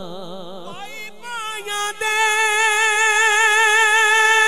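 Male voice singing Punjabi Sufi kalam: an ornamented phrase with heavy vibrato trails off, and about two seconds in the singer takes up a long, high held note.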